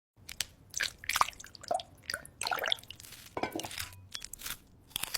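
Close-up eating sounds of sauce-dipped fries: wet squishing and dripping mixed with crunching and chewing, a string of irregular short clicks and squelches.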